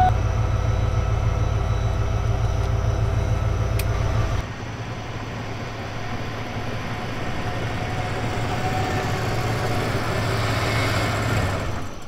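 Car engine running close by with a low, steady throb; about four seconds in the low rumble drops away and a lighter engine noise carries on, swelling a little, then cuts off at the end.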